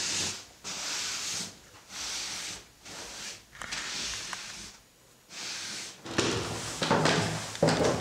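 Cotton bed sheet being swished and smoothed over a mattress by hand, several rustling strokes with short pauses between them. About six seconds in, heavier knocks and thumps begin, like footsteps on wooden stairs.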